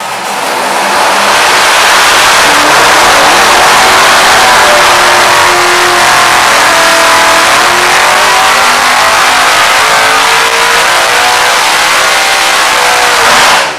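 A 598 cubic inch big-block Chevy V8 drag racing engine with a solid roller cam runs loud on an engine dyno through a long pull, its pitch climbing steadily as the revs rise. Near the end the revs come down and the sound drops off sharply.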